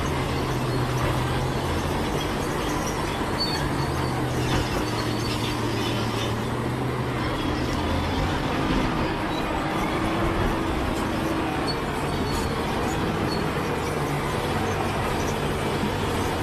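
Crawler bulldozer working: its diesel engine runs steadily under load while the steel tracks give off faint high squeaks and clanks.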